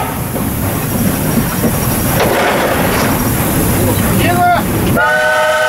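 Running noise inside the cab of an Л-class steam locomotive, a steady rumble and hiss; about a second before the end the locomotive's steam whistle sounds a steady, chord-like blast.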